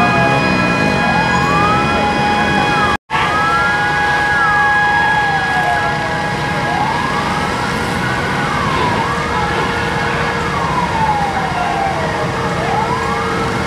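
Fire engine sirens wailing, several at once, each slowly rising and falling in pitch and overlapping out of step, over a steady high held tone. The sound drops out for an instant about three seconds in.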